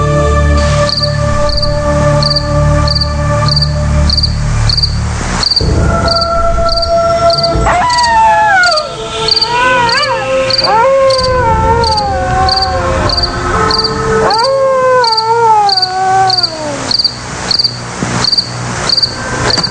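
Night-time cricket chirping, a steady chirp about one and a half times a second, over a low droning spooky music bed that fades out about five seconds in. From about eight seconds a long falling, wavering wail sounds twice over the crickets.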